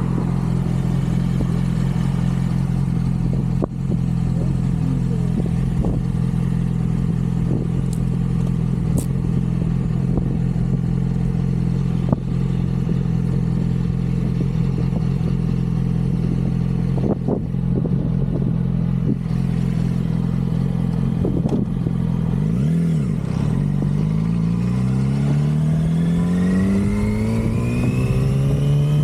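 2006 Yamaha R6 inline-four engine with its stock exhaust idling steadily. Near the end it dips, then is revved slowly and steadily upward for several seconds before dropping back.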